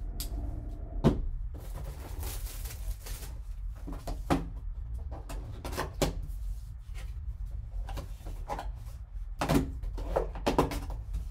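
Gloved hands unwrapping and opening a boxed trading card: plastic wrap rustling and cardboard being handled, with scattered sharp clicks and knocks, the loudest about a second in, over a steady low hum.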